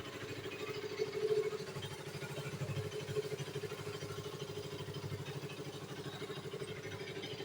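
KTM RC 200's single-cylinder four-stroke engine idling with an even, rapid pulse, briefly louder about a second in.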